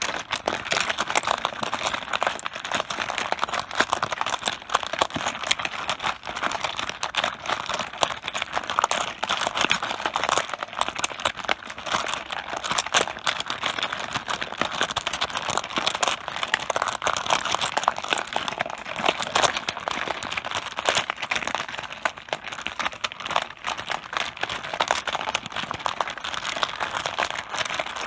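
Mahjong tiles clattering against one another on a tabletop: a dense, unbroken stream of small hard clicks that keeps up without a pause.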